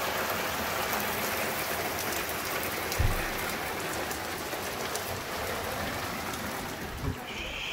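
Heavy rain pouring down onto a street and parked vehicles, a dense steady hiss. A dull bump about three seconds in.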